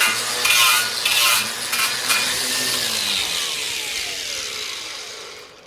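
Electric power tool working over welds on a steel motorcycle frame in repeated strokes, taking off spatter. It is then switched off and its motor winds down, falling in pitch until it stops.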